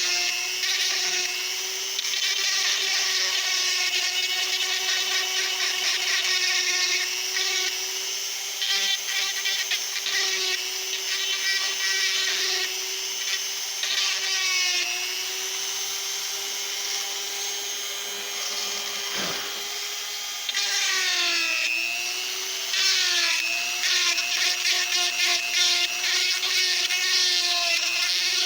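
Die grinder with a narrow cutter running at high speed, grinding wood out of a rifle stock's receiver inlet. Its steady whine comes with a rasping cutting noise and sags in pitch a few times as the cutter bites under load.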